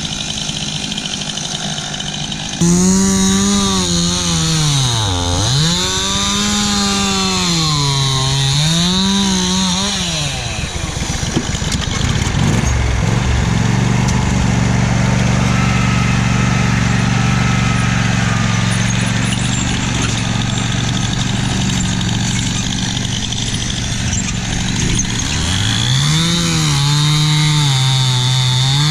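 Chainsaw engine revved up and down several times, then held at a steady high speed for about ten seconds, then revved again near the end.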